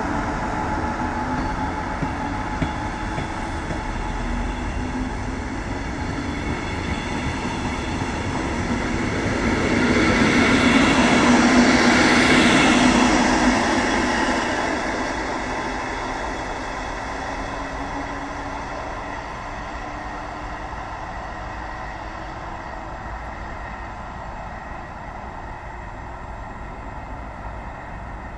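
Regional train hauled by a DB class 143 electric locomotive rolling along the rails, wheel-and-rail noise with faint motor tones that rise slowly. It swells to its loudest about halfway through as the last coaches pass, then fades away as the train draws off.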